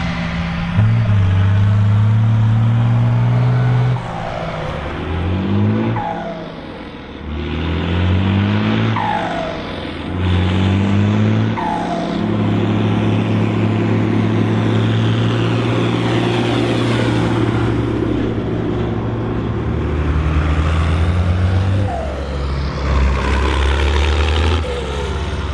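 Volvo BM turbo tractor diesel engine revving up and dropping back several times, then pulling under steady load, with the turbocharger's high whistle rising and falling along with the revs.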